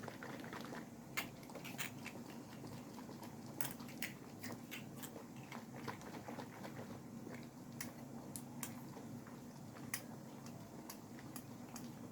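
Faint, scattered clicks and light knocks from a glass jar of lemons in salted brine being handled and moved about, over a low steady hum.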